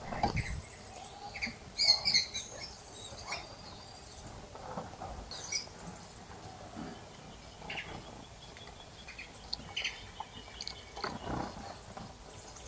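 Small wild birds chirping in short, scattered calls, with a few brief splashes of water as birds bathe in a bird bath.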